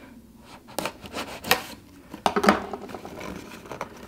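A folding pocket knife slicing the clear tape seal on a small cardboard box, then hands handling the box. Together they make an uneven run of scrapes, taps and rustles, the sharpest about halfway through.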